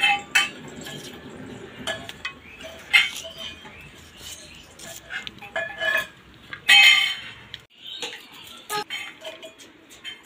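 Onions being cut by hand with a curved iron blade over a steel plate: irregular clicks and clinks of the blade and onion pieces against the plate, with a louder clatter about seven seconds in.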